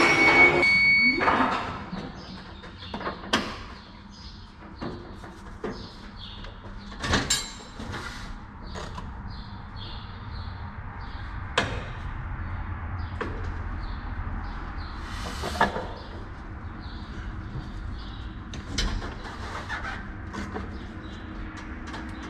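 A steady high beep with a rising machine whine lasts for about the first two seconds. After that come scattered light clicks, knocks and rustles from handling a drywall banjo taper loaded with paper tape, over a low steady rumble.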